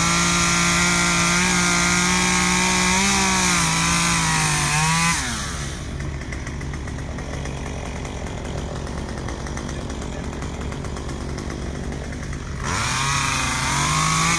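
Two-stroke chainsaw cutting branches at full throttle for about five seconds, its pitch sagging slightly under load. It drops back to a quieter idle, then revs up again near the end.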